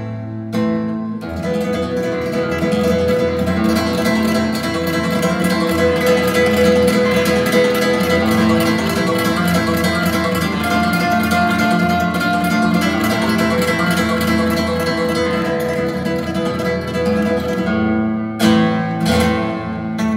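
Acoustic guitar music played back through a pair of SABA Green Cone full-range speakers in Bongo cabinets, driven by a 300B single-ended tube amplifier.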